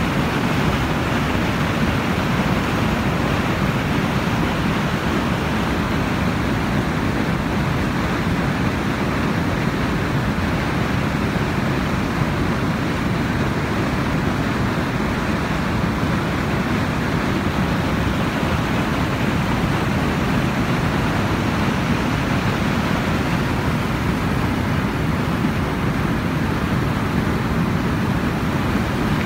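Muddy floodwater rushing and churning in heavy turbulence, pouring out from under the sluice gates of a canal headworks: a loud, steady, unbroken rush of water.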